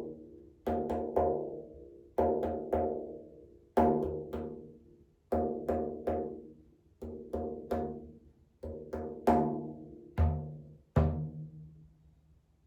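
Frame drum struck in groups of three beats roughly every second and a half, each stroke ringing on with a resonant pitched tone and fading. Near the end come two last single strokes, and the drum rings out and dies away.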